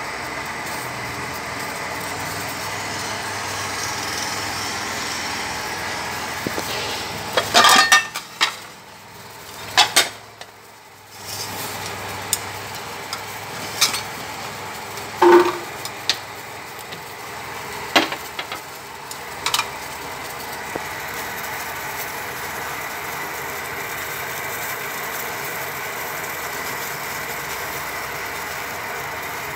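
Stainless steel pot of water and minced pork at a rolling boil on a gas stove, a steady bubbling hiss. Several sharp metal clinks of a utensil against the pot between about seven and twenty seconds in, as the scum is skimmed off the broth.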